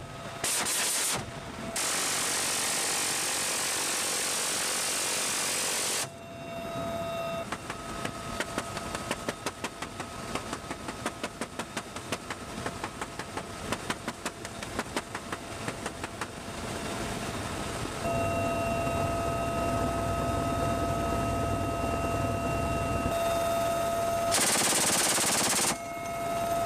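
A helicopter door gunner's heavy machine gun firing a long run of rapid shots through the middle, over the helicopter's steady in-flight drone and whine, which carries on alone afterwards.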